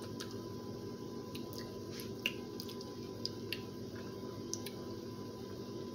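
Sausages in teriyaki sauce simmering in a pan and stirred with a spatula: scattered soft clicks and wet squishes over a steady low hum.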